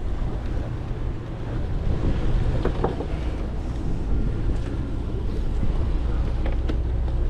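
Steady low rumble of a sportfishing boat's engine under way at sea, with wind on the microphone and a few faint clicks.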